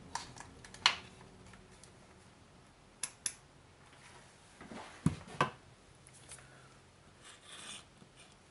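Scattered sharp clicks and knocks as a multimeter and its test leads are handled and set down on a workbench, loudest as a pair about five seconds in, with a soft rustle near the end.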